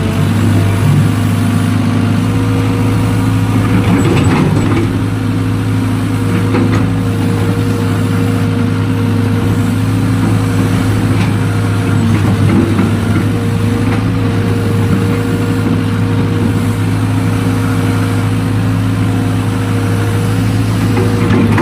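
Excavator's diesel engine running steadily at a constant pitch, with a few short knocks around four seconds in.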